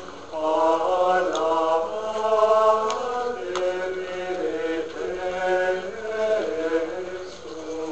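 Benedictine monks chanting plainchant together: men's voices on a slow, flowing melody with long held notes.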